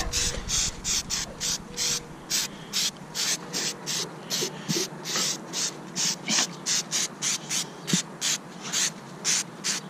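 Aerosol degreaser can spraying in short, quick spurts of hiss, about three a second.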